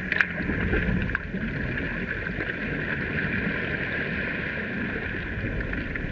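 Water sloshing and splashing around a kayak as it is rolled back upright, over a steady hiss, with a couple of short sharp splashes near the start.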